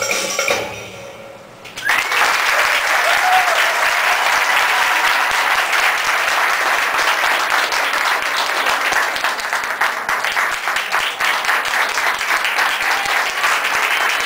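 Belly-dance music stops about a second in, and then the audience starts applauding, dense steady clapping that runs on.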